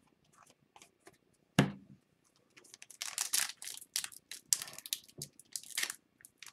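A single sharp tap about a second and a half in, then irregular crinkling and tearing of a plastic trading card pack wrapper being pulled open by hand; it is a pack that is harder to open than the rest.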